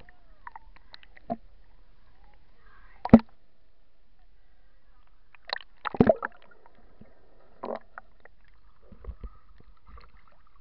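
Muffled underwater water noise against a submerged camera: a few scattered knocks and gurgles. The loudest comes about three seconds in, with a cluster around six seconds.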